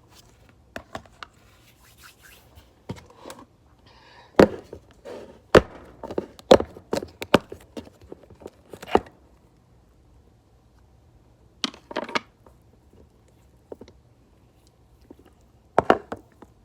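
Slime being squeezed and poked, making irregular sharp clicks and pops. They come thick and fast for a few seconds, stop, then come back as a couple of short pairs of clicks.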